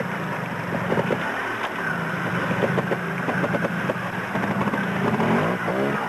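Trial motorcycle engine running at low speed and revving up and down with the throttle, the pitch rising and falling several times near the end.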